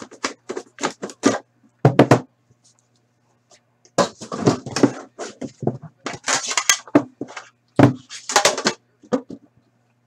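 Hands handling and opening a cardboard trading-card box and its packs: a run of sharp clicks, taps and rustling, with a knock about two seconds in and clusters of crinkly handling noise later. A faint steady low hum sits underneath.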